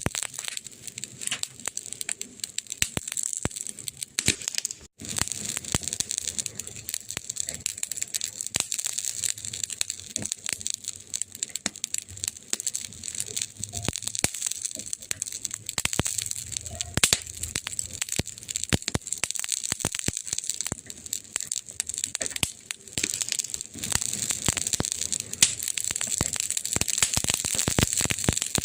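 Wood fire crackling in a fireplace: irregular sharp pops and snaps over a steady hiss, with a momentary gap about five seconds in.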